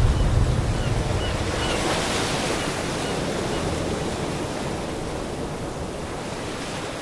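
Ocean waves and surf rushing, a dense steady noise that slowly grows quieter, with a few faint short high chirps in the first half.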